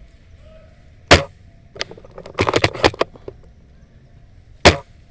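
Airsoft gun shots: two sharp, loud cracks about three and a half seconds apart, with a short cluster of lighter clicks and rattles in between.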